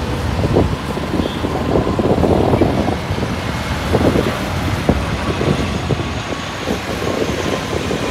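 ATR twin-turboprop airliner flying low overhead on approach: a steady engine and propeller drone, with irregular low buffeting from wind on the microphone.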